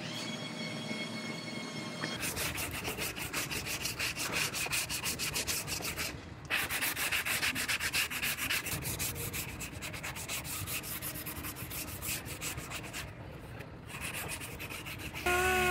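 Hand sanding of body filler on a car's steel rear quarter panel with a sanding block. The fast back-and-forth rasping strokes start about two seconds in and stop briefly twice. Near the end a louder wavering whine starts.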